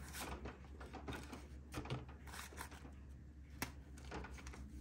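Paper banknotes rustling softly as they are counted and sorted by hand, with scattered light clicks and one sharper tick about three and a half seconds in. A low steady hum runs underneath.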